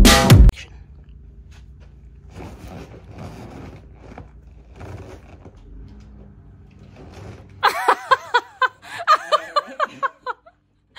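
Music cuts off half a second in, leaving a quiet room with faint rustling. About eight seconds in, a person bursts into laughter for about three seconds, in quick repeated pulses.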